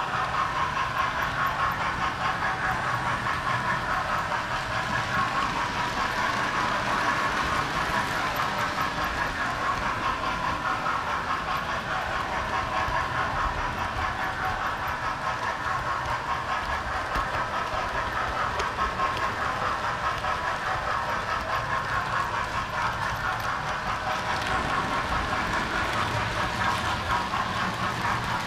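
Model train running along its track, heard close up from a camera riding on the train: a steady rolling noise of wheels on the rails, without pause.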